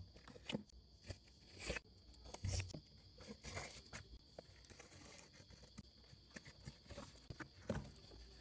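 Cardboard box being handled and opened by hand, its packing tape slit and pulled free: irregular faint scrapes, rustles and crinkles of cardboard and plastic tape, with a few sharper knocks.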